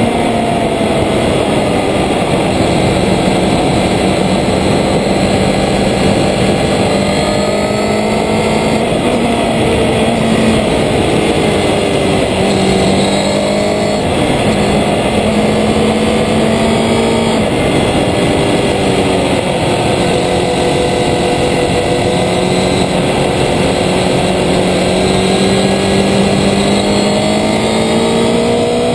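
Road-racing motorcycle's engine running hard around a track, under a steady rush of wind noise. The engine note falls at the start, shifts up and down in small steps through the middle, holds steady for a long stretch, then rises near the end.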